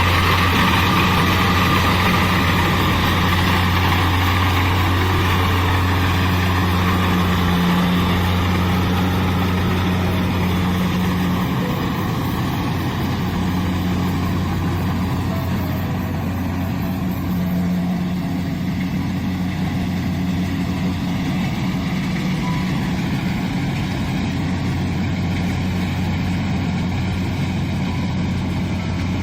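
Kubota DC-70 combine harvester's diesel engine running steadily while harvesting rice, a low even hum that eases slightly about ten seconds in.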